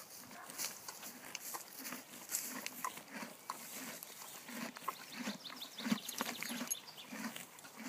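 Estonian Draft mare chewing a mouthful of grass close to the microphone: irregular crisp crunches over soft low thumps about twice a second.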